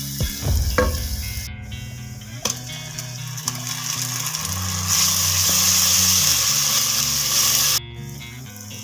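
Chopped onions and then tomato paste sizzling in hot oil in a pan, with a few sharp taps and scrapes of a spatula against the pan in the first second. The sizzle is loudest from about five seconds in and cuts off abruptly near the end.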